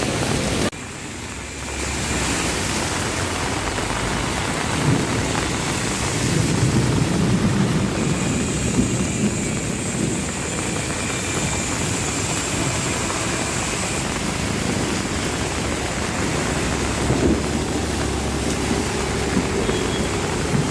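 Heavy rain pouring down in a steady, dense hiss with a low rumble beneath it. The sound dips briefly about a second in, then returns.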